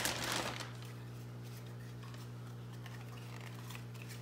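A clear plastic parts bag crinkles briefly as it is handled and then goes still, leaving a steady low electrical hum. Over the hum come a few faint light clicks of hard plastic roll cage parts being picked up.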